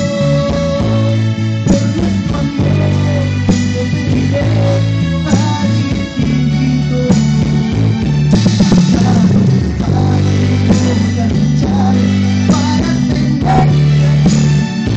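A man singing into a handheld microphone, amplified through a party sound system, over music with a steady, prominent bass line.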